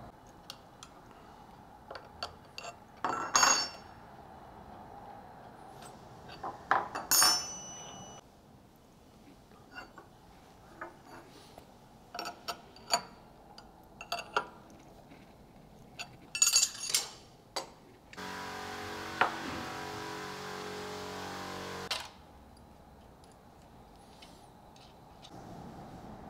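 Metal clinks and clicks of a wrench on a CNC router's spindle collet nut as a 12 mm HSS end mill is fitted, scattered through, a few of them sharp and loud. Past the middle, a steady machine sound starts abruptly, runs for about four seconds and cuts off.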